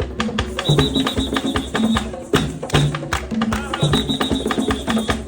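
Music with a steady beat of sharp percussive knocks, a repeating low bass figure and a high held tone that comes and goes.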